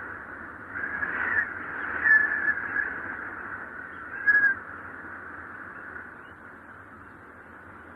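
Wind whistling in gusts: a steady rush of airflow with a high, wavering whistle that swells about a second in, again around two seconds, and briefly near four and a half seconds, then settles back to the rush.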